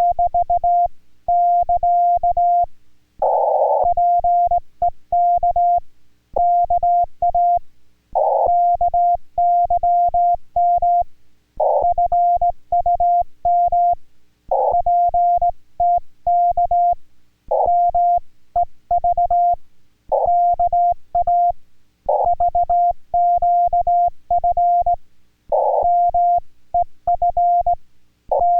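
Morse code (CW) from an amateur radio contact in Korean Morse: a single steady mid-pitched tone keyed on and off in dots and dashes, in groups separated by short pauses, with sharp clicks at the keying.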